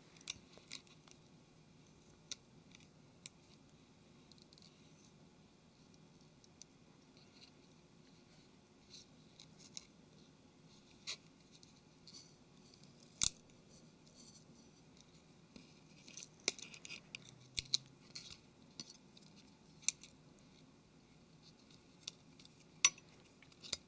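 Faint scattered clicks and scratches of a thin plastic blade prying a phone's small flex circuit board off its double-sided tape, with one sharper tick about halfway through and a busier run of small clicks after it.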